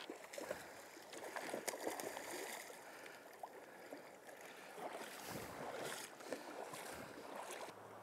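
Shallow river water splashing and sloshing irregularly as a hooked Atlantic salmon thrashes at the surface and is hand-lined in and tailed by a wading angler; fairly faint, with scattered small splashes.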